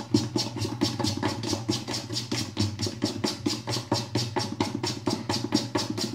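Dosa batter being beaten by hand in a metal bowl to whip air into it: fast, even strokes, about six a second, over a steady low hum.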